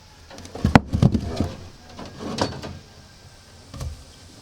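Steel rebar knocking and clanking as reinforcement cages are handled and tied: a cluster of knocks about a second in, another about two and a half seconds in, and a single knock near the end.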